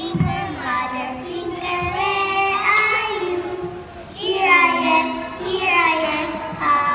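A group of young girls singing a nursery rhyme together, in two phrases with a short break about four seconds in.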